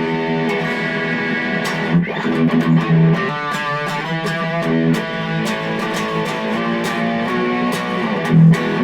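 Electric guitar played through a Boss Katana Mini practice amp on its gain setting with the delay off: sustained chords and picked notes, cutting off abruptly at the end.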